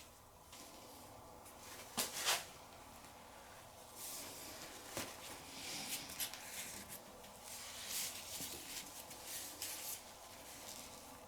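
Faint metal tool handling as a harmonic balancer puller is worked to press the crankshaft pulley off a Ford 4.0L SOHC V6: two sharp clicks about two seconds in, then light ticking and scraping.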